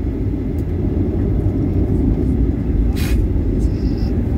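Steady low rumble inside the cabin of a Boeing 737-900ER taxiing, from its CFM56-7B engines and rolling wheels, with a short hiss about three seconds in.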